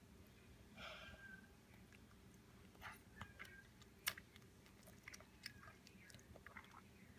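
Faint sounds of a young child chewing and slurping lo mein noodles: soft wet mouth smacks and clicks at irregular moments, the sharpest click a little after four seconds in.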